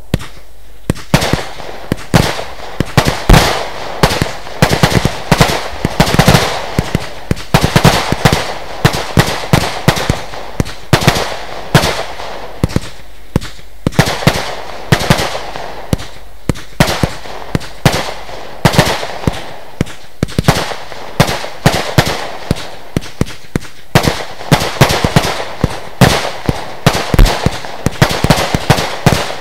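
Lesli Dezemberfest 512-shot, 20 mm calibre firework battery firing shot after shot: sharp bangs and crackles, irregular, a few every second, with brief lulls between volleys.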